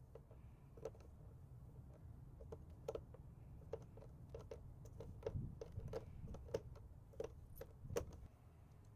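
Phillips screwdriver turning a screw out of a plastic air box cover: faint, irregular clicks and ticks, about two a second.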